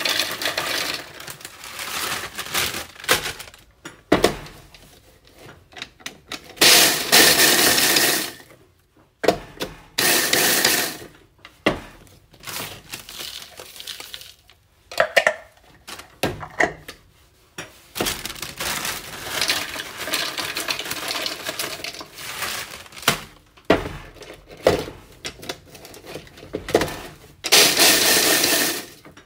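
Small electric food chopper pulsed in short bursts to grind vanilla wafers into coarse crumbs: three loud runs of a second or two each, about a quarter of the way in, again shortly after, and near the end. Between the pulses come crinkling of a plastic bag, wafers rattling into the plastic chopper bowl, and crumbs being tipped out.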